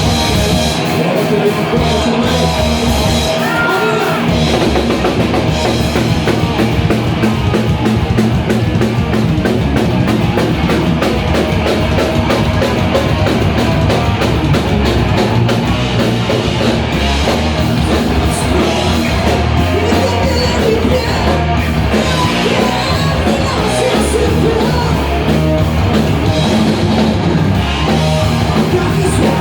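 Rock band playing live: drum kit, guitars and vocals, loud and continuous.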